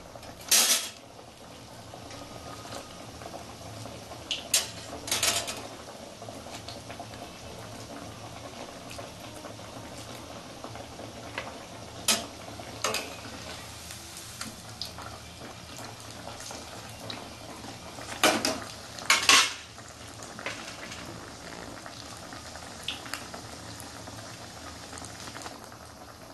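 Onion pakoras deep-frying in hot oil in a kadai, a steady bubbling sizzle throughout. A metal spatula clinks against the pan in short clusters about four times as the fritters are turned.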